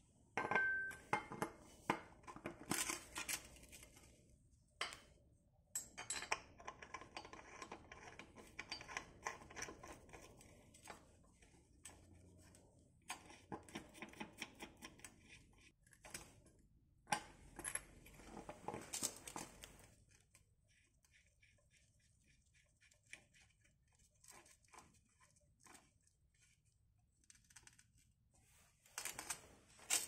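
Metal clinking and rattling in short bursts, as a splined steel bottom bracket removal tool is fitted onto a bicycle's cartridge bottom bracket and a steel holding bracket is set over it. The clinks come in clusters with pauses, thinning to scattered small ticks in the last third before a final cluster near the end.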